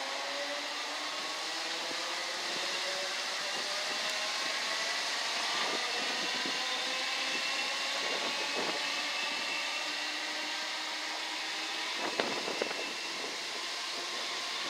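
Class 315 electric multiple unit pulling away and accelerating, its traction motors whining in several slowly rising tones. A few brief knocks come about eight and twelve seconds in.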